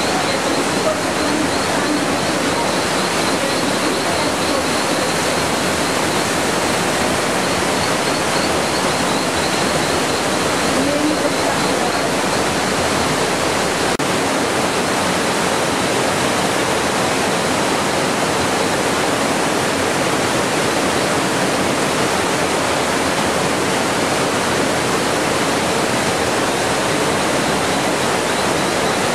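Steady rush of a fast-flowing stream over rocks, with a faint, rapid, high chirping trill in the first dozen seconds.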